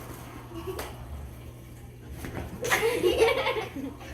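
A person laughing in a burst of about a second, starting roughly two and a half seconds in, over low background hum.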